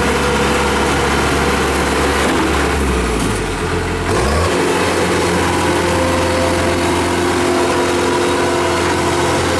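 Kubota DC-105X combine harvester running, its diesel engine and machinery humming steadily; the engine note changes about four seconds in as the machine turns.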